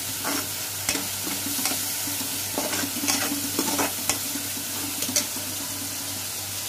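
Onion-tomato masala sizzling as it is fried on high flame in a metal kadai. A metal slotted spoon stirs it, scraping and clinking against the pan every half second to a second.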